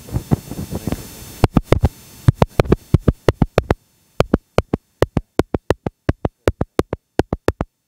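A Lensgo LWM-308C wireless microphone being tapped repeatedly, heard through the microphone itself: a quick run of sharp taps, light at first and then firmer at about five a second, with silence between them in the second half.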